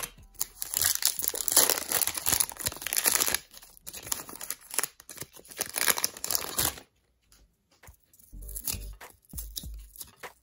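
Foil wrapper of an Upper Deck hockey card pack being torn open and crinkled by hand, a dense run of crackling and rustling that stops about seven seconds in. A few soft handling sounds of the cards follow.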